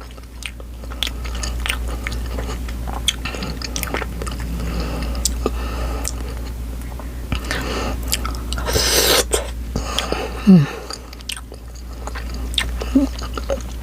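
Close-miked chewing of spicy barbecue Vienna sausages, with many sharp wet mouth clicks and smacks. A short loud hiss comes about nine seconds in.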